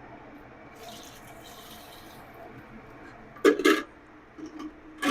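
Chicken stock being poured into a soup pot, a soft splashing hiss lasting a second or two. Two short louder sounds follow later.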